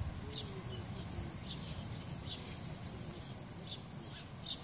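Insect chorus: a steady, high-pitched pulsing trill with short falling chirps repeating about every half second.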